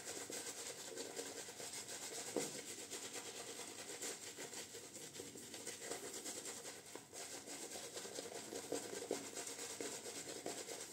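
Roma shaving brush swirling lather into a full beard: a faint, continuous bristly rubbing and scratching.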